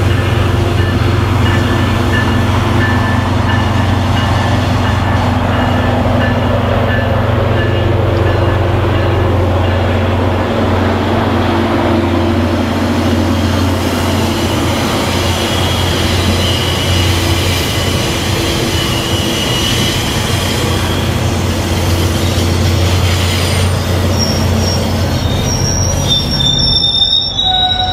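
UTA FrontRunner commuter train pulling in behind an MPI MP36PH-3C diesel locomotive: a steady low engine drone under the rumble of the double-deck cars rolling past, with thin high wheel squeals. Near the end the drone fades and higher-pitched squeals take over as the last car comes by.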